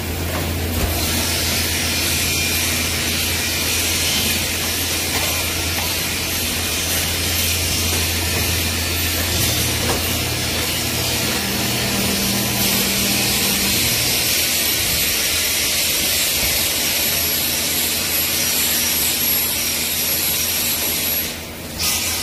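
Multi-point steel grating welding machine, a two-cross-bar type, running: a steady low hum under a constant hiss, dipping briefly near the end.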